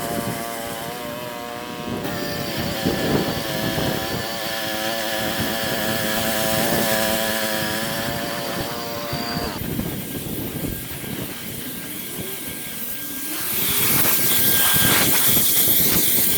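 Petrol engine of a Westermann moss brush running while its rotating brush scrubs moss off a car park surface. The sound changes about ten seconds in and gets louder in the last few seconds.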